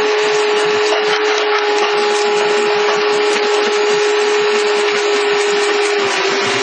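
Excavator and its hydraulic pile breaker running, a loud steady whine over dense machine noise, the whine dipping slightly in pitch about six seconds in.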